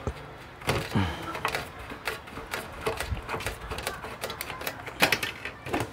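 Irregular clicks, taps and knocks of an electric fan's plastic housing and exposed motor assembly being handled, with a cluster of sharper knocks about a second in and again near the end.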